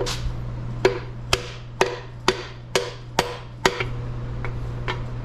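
Hammer blows striking in a steady rhythm, about two a second, eight sharp knocks, to drive a stuck piston-and-rod assembly out of the bore of an old 350 engine block; the blows stop about three and a half seconds in. A steady hum runs underneath.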